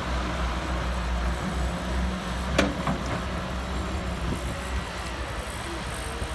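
Heavy diesel machinery running with a steady low rumble, with a sharp metallic clank about two and a half seconds in and a lighter one just after.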